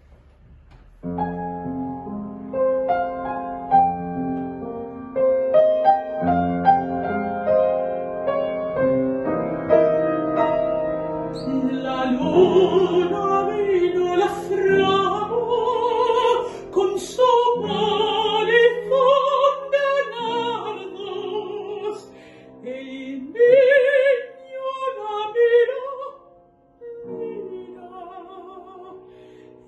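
Upright piano plays a chordal introduction to a Spanish art song, and about twelve seconds in a mezzo-soprano joins, singing with wide operatic vibrato over the piano accompaniment.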